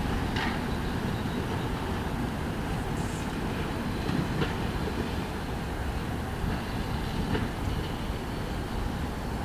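Tatra T3 tram rolling slowly around a curve. Its wheels click three times over the rail joints over a steady running rumble, and a faint high squeal comes from the wheels on the curve from about four seconds in.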